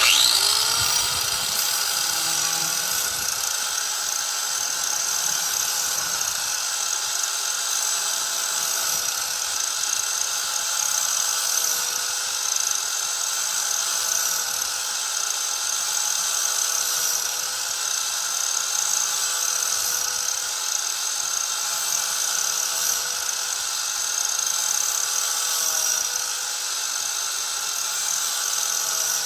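Harbor Freight angle grinder spinning up and then running steadily, its disc grinding the cutting edge of a steel Gravely mower blade to sharpen it. The motor's pitch wavers slightly now and then as the disc is pressed into the steel.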